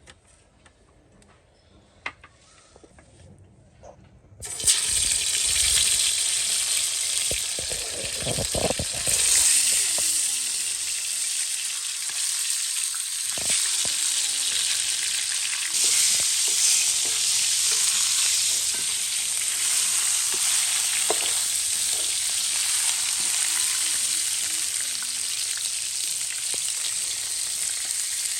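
Chicken pieces frying in hot oil: after a few faint clicks, a loud, steady sizzle starts suddenly about four and a half seconds in and carries on, with a few knocks of handling in the pan soon after it starts.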